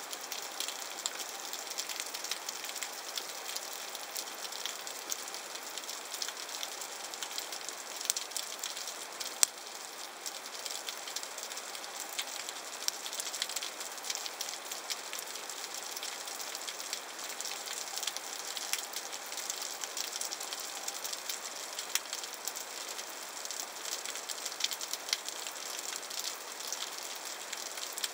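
Underwater ambient noise over a shallow rocky seabed: a steady crackling hiss of dense, irregular sharp clicks, picked up through the sealed body of a Panasonic FT3 waterproof camera.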